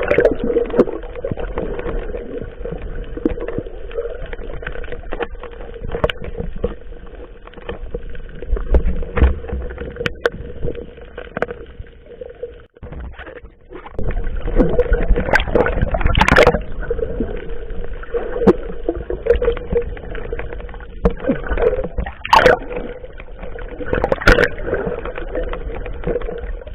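Boat engine running steadily with a constant hum over water noise, with a few sharp splashes or knocks; the sound jumps louder about halfway through.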